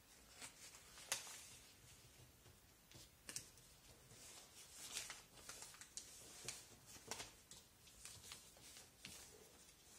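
Faint rustling and crinkling of several sheets of newsprint being folded and creased by hand, in scattered short crackles.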